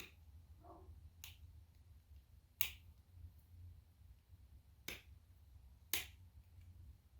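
A few faint, sharp clicks at irregular intervals, four in all, as a small hand tool works over freshly demolded cast resin buttons, over a low steady hum.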